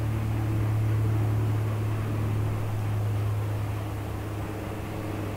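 Steady low engine drone with a continuous hum, easing off slightly over the last couple of seconds.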